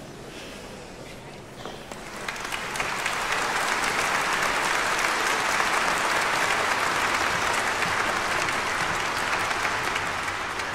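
Large theatre audience applauding, swelling over the first two or three seconds into a steady ovation.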